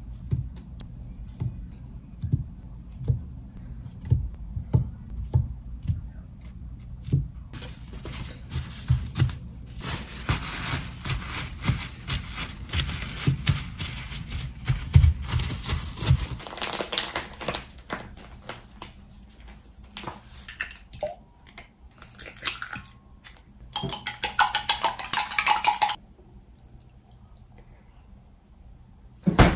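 Parboiled potato slices being set down on a paper towel with soft taps, then paper towels rustling and crinkling as they are pressed over the slices to blot off the water before frying.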